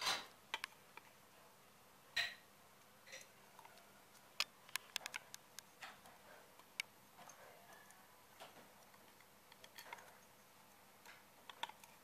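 Faint, irregular clicks and taps of a clear plastic piece and plastic tubing being handled and fastened with a red twist wire, with sharper knocks right at the start and about two and four seconds in.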